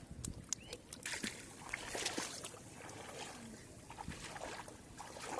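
Splashing and sloshing in shallow water, with many short scattered splats and knocks.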